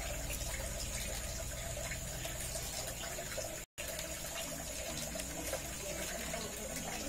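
Steady background hiss with a faint constant hum and no distinct event. It cuts out completely for a moment a little under four seconds in.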